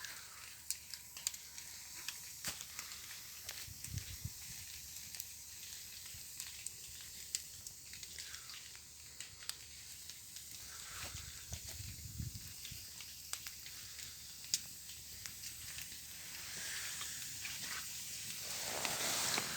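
Campfire crackling with sharp irregular pops over a steady hiss; the hiss swells over the last few seconds.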